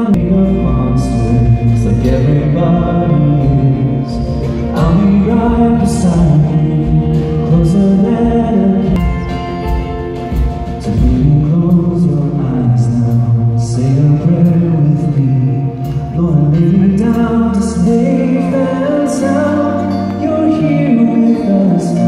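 Live band playing a slow worship song with a singer's melody rising and falling over electric guitar and sustained accompaniment.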